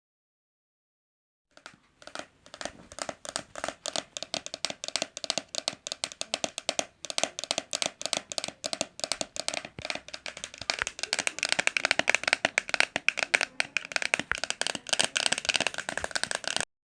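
Galloping horse hoofbeats: a fast, dense run of clattering strikes that starts about a second and a half in and grows louder from about ten seconds in, as if approaching.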